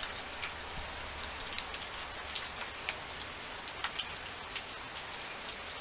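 Steady rain falling during a thunderstorm, with scattered louder drops ticking at irregular moments.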